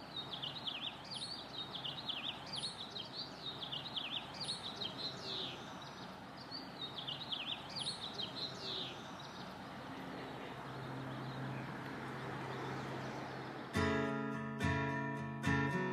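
Outdoor ambience with small birds chirping in quick repeated calls over a steady background hiss, then a low steady hum. Near the end an acoustic guitar starts strumming.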